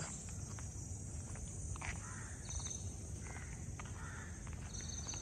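Outdoor ambience: a steady high-pitched insect drone, with faint footsteps and two short high chirps about two and a half and four and a half seconds in.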